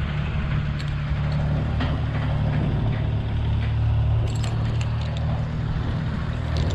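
An engine running steadily at a constant speed, with scattered clicks and knocks over it.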